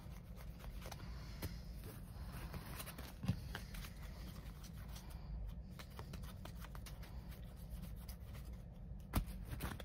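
Faint rustling and flicking of trading cards being thumbed through by hand, with a few soft taps, the clearest about three seconds and nine seconds in.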